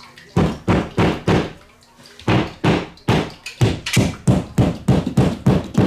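Claw hammer tapping wall anchors into holes in the wall: four quick strikes, a short pause, then a steady run of about three strikes a second.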